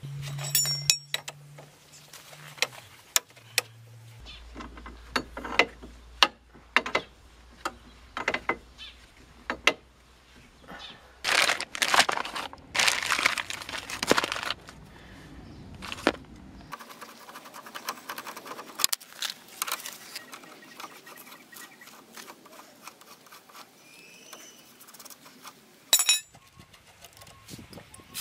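Scattered metal clinks and knocks of a tie rod end and tools being handled, with a plastic bag crinkling for a few seconds midway as a new steering part is shaken out of it.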